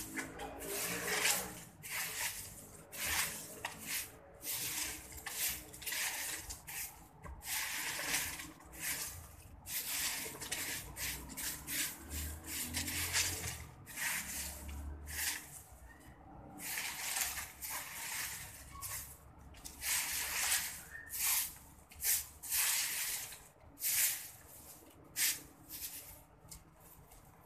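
Broom sweeping a concrete floor strewn with fallen fruit: a run of irregular swishing strokes, one or two a second, with short pauses.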